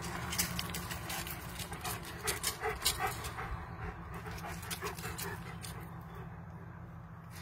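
German Shepherd puppies whimpering, a few short whines between about two and three seconds in, over a run of light clicks and taps that dies away after about four seconds.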